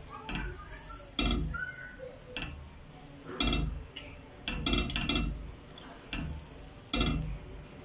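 Metal ring mould and its handled press knocking and clinking against the pan while harcha dough is pressed into shape: about seven sharp metallic taps, roughly a second apart, each with a short ring.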